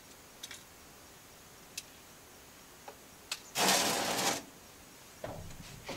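Light clicks and then a brief, louder scratchy rustle about two-thirds of the way in: a plastic gallon jug of motor oil being handled at its cap.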